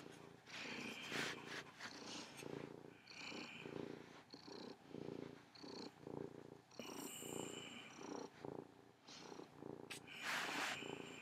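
Domestic tabby cat purring steadily while being stroked on the head, the purr pulsing in and out with its breaths. A brief soft rustle comes near the end.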